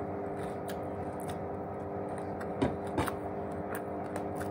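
Quiet eating sounds: small crisp crunches and clicks, two of them clearer about two and a half and three seconds in, over a steady background hum.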